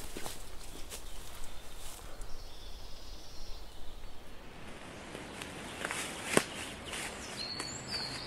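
Footsteps crunching and rustling through dry fallen leaves, with scattered crackles and one sharper snap about six seconds in. A short bird chirp near the end.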